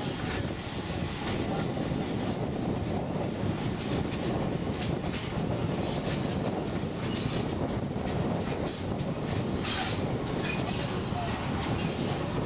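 Narrow-gauge tourist train running along the track, heard from its open upper deck: a steady rumble of wheels on rails with irregular clicks and clacks. Brief faint high wheel squeals come now and then.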